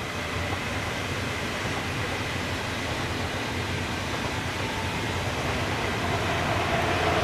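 Deutsche Bahn ICE high-speed train passing, a steady rush of wheels on the rails that grows louder near the end.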